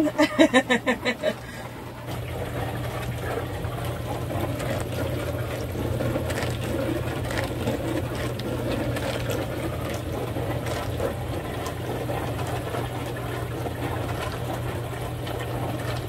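HAVA R01 countertop dishwasher running its wash cycle: a steady pump hum with water spraying inside over a basket of fruit. It settles to an even level about two seconds in.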